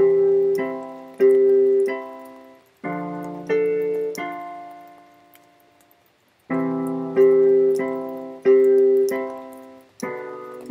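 Piano tone played slowly, chords struck one after another and left to die away, with a pause of about a second and a half just past the middle before the chords resume.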